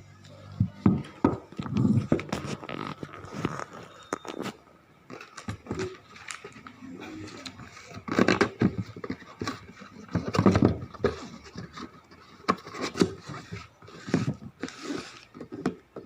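Irregular clicks, knocks and scrapes of an unboxed spinning fishing reel and its packaging being handled.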